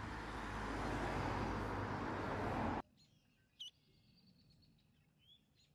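A passing road vehicle's rushing noise, growing louder and then cut off abruptly about three seconds in. Afterwards a quiet outdoor background with a few short, high, rising bird chirps.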